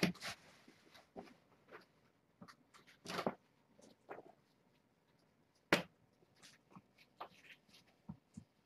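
Scattered rustles and light knocks of things being handled, with a longer scrape about a third of the way in and one sharp knock a little past halfway.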